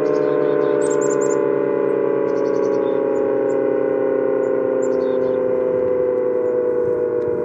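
Sentry 15V2T dual-tone electromechanical warning siren sounding a steady chord of tones, its pitch sliding slowly lower.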